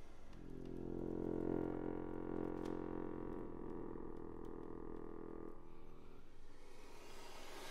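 Chromatic button accordion holding a dense low chord for about five seconds, the tone wavering with slow beating, then breaking off abruptly. A few faint key clicks sound during the chord, and a soft airy hiss follows near the end.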